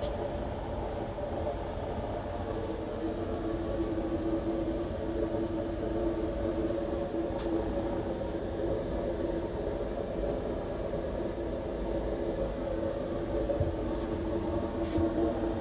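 Steady low cabin drone of an Airbus A380 airliner heard inside its lavatory: an even rumble with a steady hum running through it.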